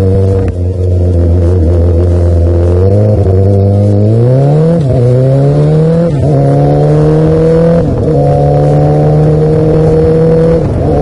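Yamaha R6's 600 cc inline-four engine heard from the rider's seat, running steady, then revving up about three seconds in. Several brief dips in pitch follow as it shifts gear, and it settles into a steady pull.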